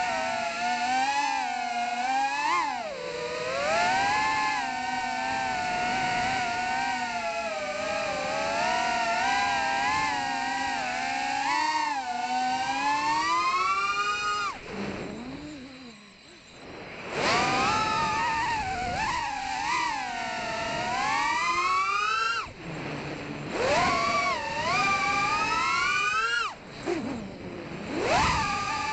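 Emax 2004 3000 kV brushless motors of a 3.5-inch FPV quadcopter whining, their pitch rising and falling with the throttle, heard from the drone's onboard camera. About halfway through the whine drops away for a couple of seconds as the throttle is cut, then comes back, with a few more short cuts near the end.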